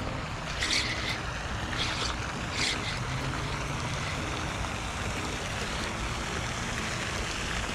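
Steady wind and water noise, buffeting the microphone, with a few short hissing bursts in the first three seconds.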